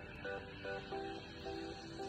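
Background music: a plucked guitar picking out a melody of short notes, a few to the second.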